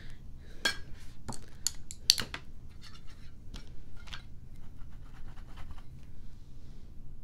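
Clicks, taps and light scrapes of an eyeshadow palette and makeup brush being handled. The loudest is a sharp click a little over two seconds in, and softer taps follow.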